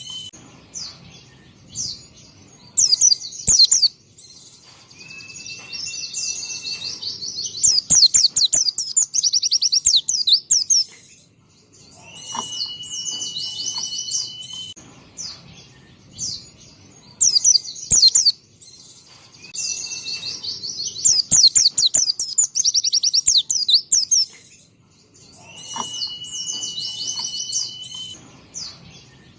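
White-eye (pleci) singing: fast, high twittering trills and chatter in repeated phrases, several of them opening with a long, steady whistled note.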